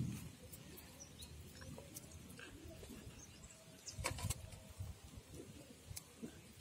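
Faint outdoor background with scattered short bird chirps, and a brief cluster of clicks and knocks about four seconds in.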